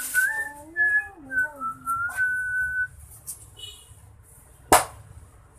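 Someone whistles a short wavering tune for about three seconds. Near the end comes a single sharp crack, an egg being broken open over the bait basin.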